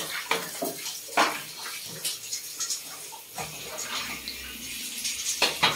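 Handheld shower head spraying water that splatters on a baby monkey and a plastic toilet seat, a steady hiss with irregular sharper splashes.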